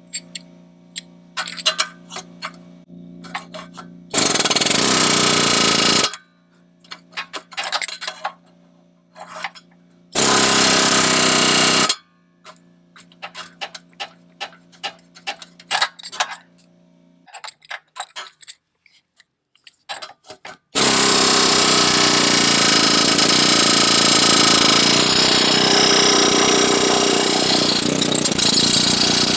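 Pneumatic air hammer with a chisel bit hammering at the exhaust flex pipe and clamp. It runs in three bursts: about two seconds near 4 s, two seconds near 10 s, and a long run from about 21 s to the end. Between bursts there are metallic clinks and taps.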